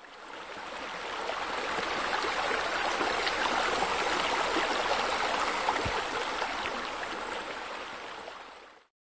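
Steady flowing water, fading in over the first two seconds and fading out just before the end, with a single low bump about six seconds in.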